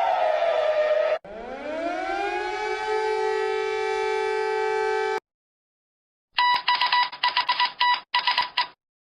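Civil defense siren in an emergency alert: a falling wail cuts off about a second in, then the siren winds up again from low to a steady tone that stops abruptly after about four seconds. After a short silence comes a couple of seconds of rapid, choppy electronic beeping.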